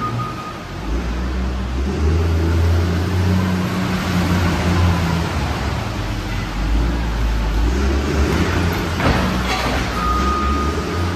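Caterpillar wheel loader's diesel engine working under load, its rumble rising and falling as it drives in and pushes a bucket of garbage over the trailer edge. There is a short crashing scrape about nine seconds in, and a steady high tone comes in near the end.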